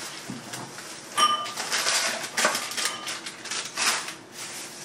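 Stemmed wine glasses being set on a cabinet shelf: a ringing glass clink about a second in, then several lighter knocks and clinks.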